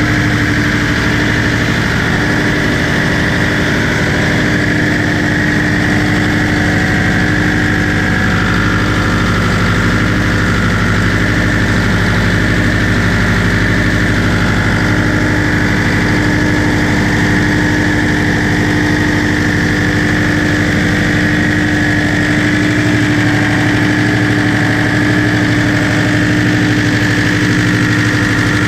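Caterpillar marine diesel engine running at a steady idle, heard close up in a boat's engine room.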